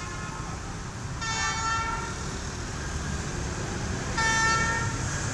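D19E diesel-electric locomotive's horn sounding two chord-like blasts, each under a second long and about three seconds apart, over a steady low rumble.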